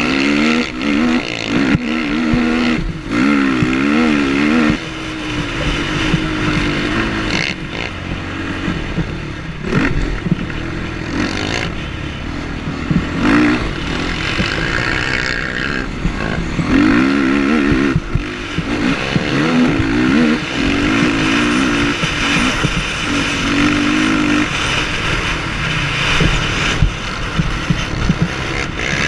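Motocross race quad's engine revving up and down hard as it is raced around a dirt track, heard from the rider's helmet-mounted camera with wind noise.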